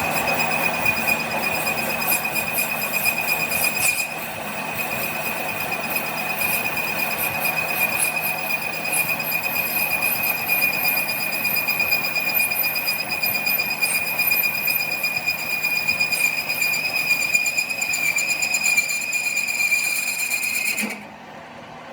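Metalworking machine running with a steady high-pitched squeal over a dense metallic crackle, cutting off suddenly near the end.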